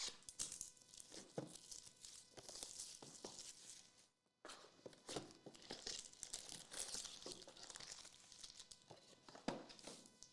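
Plastic wrapping on a trading-card box being torn and crinkled by hand, in two stretches of rustling with small clicks and a short pause about four seconds in.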